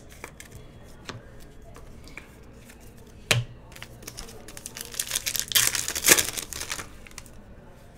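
Light clicks of trading cards being handled and a sharp tap a little past three seconds in, then a foil trading-card pack being torn open, crinkling for about two seconds.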